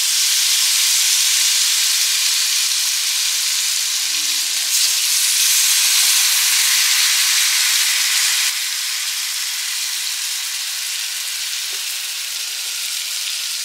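Salmon fillets sizzling steadily as they fry in butter in a hot frying pan. The sizzle gets a little quieter about eight and a half seconds in.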